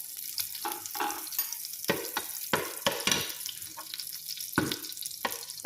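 Butter and olive oil sizzling in a hot pan, with a utensil knocking and scraping against the pan at irregular moments.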